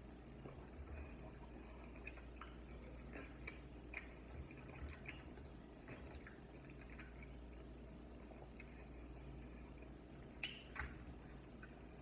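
Close mouth sounds of eating sauced chicken wings: faint wet smacking and sticky clicks scattered throughout, with two sharper clicks about ten and a half seconds in.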